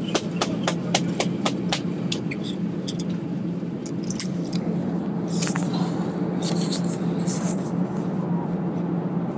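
Steady low drone of an airliner cabin. A quick run of sharp clicks, about four a second, comes in the first two seconds or so, and some hissy rustling comes near the middle.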